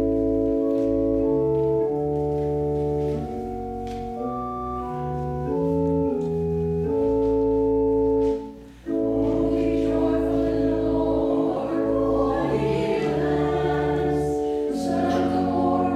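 Church organ playing held chords that change every second or so, breaking off briefly about eight seconds in. The organ then starts again and the congregation sings along with it.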